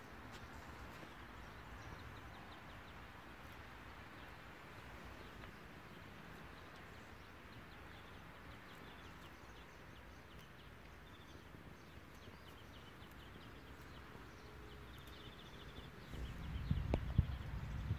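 Outdoor ambience: a steady faint hiss with a few faint high bird chirps and a short trill. Near the end a low rumble comes in, with one sharp knock.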